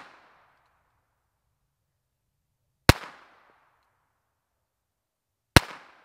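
Two unsuppressed shots from a Smith & Wesson M&P22 Compact .22 LR pistol firing CCI ammunition, nearly three seconds apart. Each is a sharp crack with a short echo trailing off, metered at about 154.5 dB, the pistol's baseline without a suppressor.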